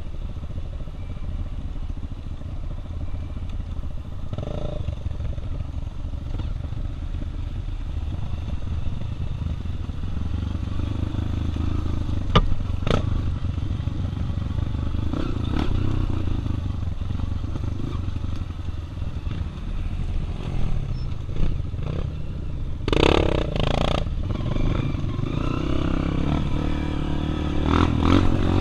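Four-stroke single-cylinder trail motorcycle engines running under throttle on a rough dirt trail. The bikes clatter and scrape over the ground, with a few sharp knocks about halfway through and louder jolts near the end.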